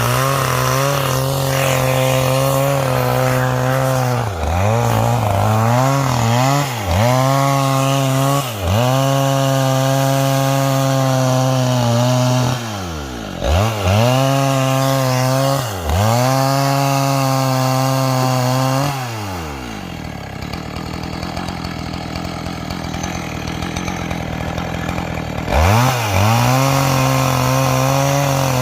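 Two-stroke chainsaw with a square-ground chain ripping lengthwise through garapa amarela wood, running at high revs with its pitch dipping briefly several times. About two-thirds of the way through it drops to idle for around six seconds, then revs back up near the end.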